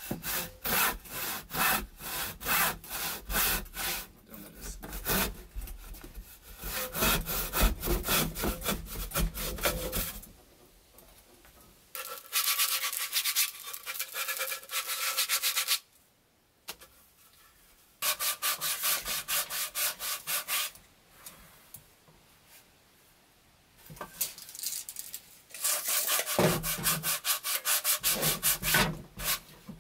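A hand saw cutting through a softwood board in quick, even back-and-forth strokes for about ten seconds. Then comes the steady rubbing of sandpaper worked by hand over the sawn wood, in two spells. Near the end, rhythmic hand-sawing starts again.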